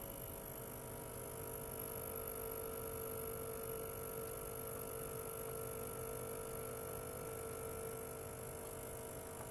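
Ultrasonic cleaner running, giving off a steady hum made of several held tones, the strongest a mid-pitched drone, with a thin high whine above it.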